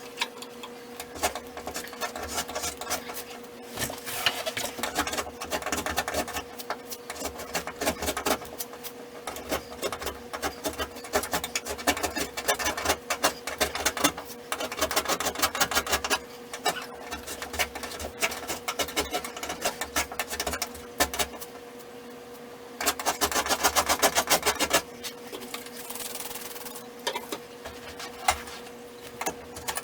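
Rapid, repeated scraping and rubbing against a wall, the sound of old wallpaper border being scraped off, with short pauses between bouts and a steady hum underneath.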